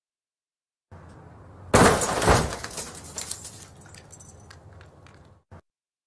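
Car crash sound effect: a brief low rumble, then a sudden loud impact of crumpling metal and shattering glass just under two seconds in. Scattered clinks of falling glass and debris trail off for about three seconds, and a short knock comes near the end.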